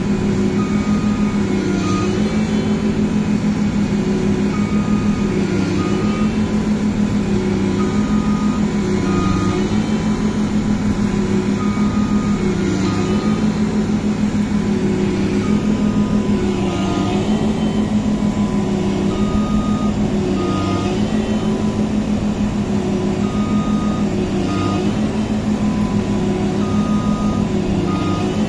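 Engine of a tracked Massey Ferguson rice combine harvester running steadily under load. An electronic warning beep repeats over it about every four seconds, each time a longer beep followed by a short one.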